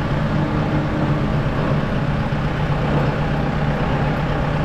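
Kubota M6060 tractor's diesel engine running steadily at low revs while it pulls the tractor slowly forward.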